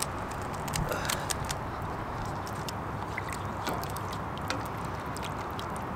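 Wood campfire crackling: irregular sharp pops and snaps over a steady hiss of flames.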